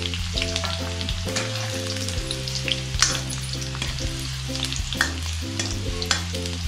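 Garlic and green chillies sizzling in hot oil in a metal kadhai, stirred with a steel ladle that scrapes the pan and clinks against it a few times, most sharply about three and five seconds in.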